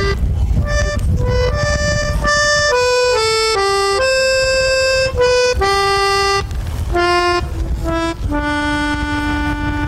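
Small piano accordion playing a melody of single notes, quick short notes at first, ending on one long held low note. A low background rumble runs underneath.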